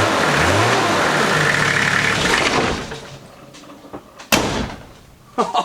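Nissan TD42 4.2-litre straight-six diesel running and being revved, rising and falling in pitch with no knock to be heard: the injector or engine knock is gone. The engine stops a little under three seconds in, followed by one sharp click.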